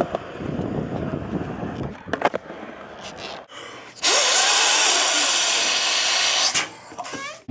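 Skateboard rolling, with a sharp clack about two seconds in. Then, after a cut, a person blowing hard into a rubber balloon: a steady rush of breath for about two and a half seconds, followed by a few short rising squeaks near the end.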